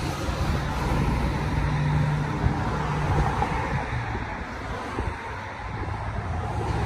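Steady road traffic noise from passing cars, with wind buffeting the microphone; a vehicle's engine hum stands out over the first few seconds.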